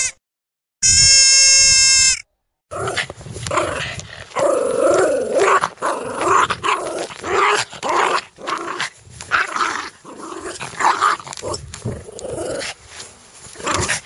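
A goat bleating, with the tail of one call right at the start and a second, longer call about a second in. From about three seconds in, a dog makes a long run of short, uneven vocal sounds.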